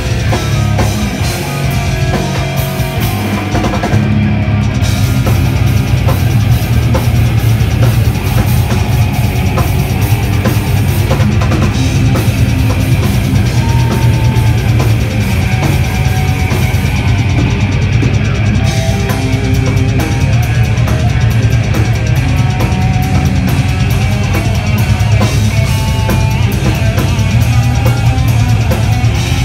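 Heavy metal band playing live: electric guitar, bass guitar and drum kit with fast, dense drumming, loud and unbroken.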